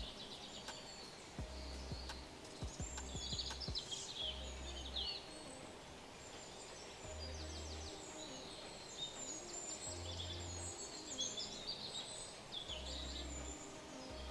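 Several birds chirping and trilling in quick, high calls throughout, over soft background music with held low notes.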